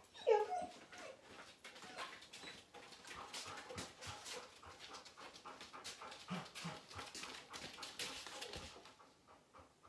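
A dog gives a short whine just after the start, then pants in quick, even breaths.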